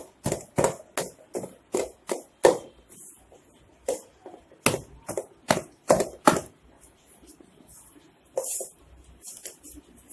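Chapati dough being kneaded by hand in a metal bowl: a series of dull knocks, roughly two or three a second, as the dough is pushed down into the bowl, with short pauses about three and seven seconds in.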